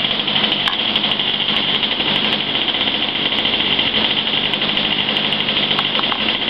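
ASP .28 two-stroke nitro glow engine on a model airplane running steadily during its break-in run, a loud, even, high-pitched buzz.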